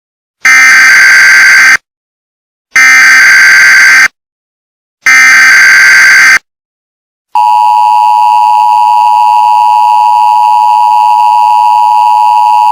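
Emergency Alert System SAME header: three short bursts of data tones, about a second apart. Then, from about seven seconds in, the steady two-tone EAS attention signal.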